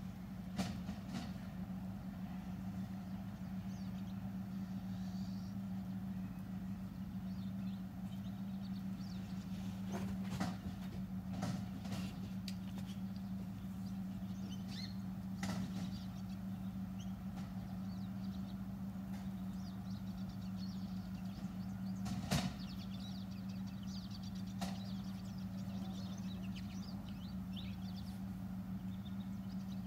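Steady low machine hum, with a few scattered sharp clicks.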